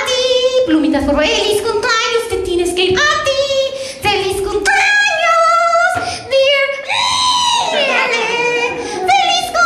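A high-pitched ventriloquist's bird-puppet voice singing, with a long high note about seven seconds in that slides down.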